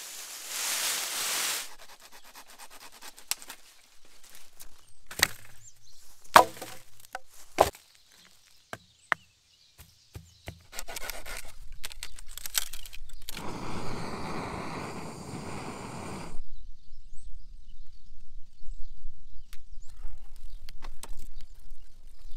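Wood being worked by hand: a run of separate sharp knocks and cracks, then about three seconds of continuous rough scraping noise, over a low steady rumble from about halfway in.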